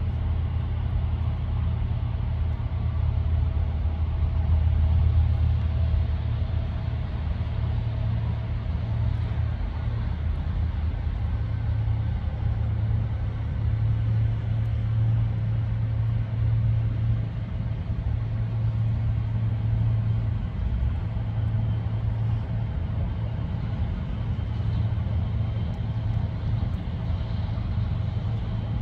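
A steady low rumble, swelling a little around five seconds in, with faint steady whining tones above it.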